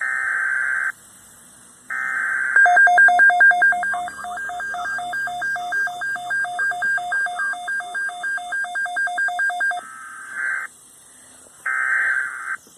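Weather alert broadcast tones. A buzzy digital data burst plays at the start and another about two seconds in. Then several seconds of rapidly alternating high and low beeps make up the attention signal, and two more data bursts follow near the end.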